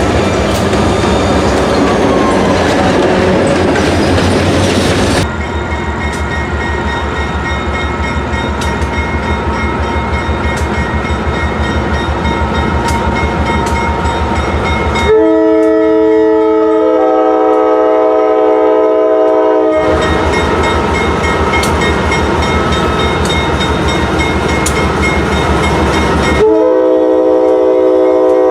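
A Pan Am Railways GE B40-8 freight locomotive's multi-chime air horn sounds a long blast of about five seconds, then starts again near the end, over the steady clickety-clack of train wheels on rail joints. The first few seconds are a loud rushing train passing close, with a falling tone, before an abrupt change.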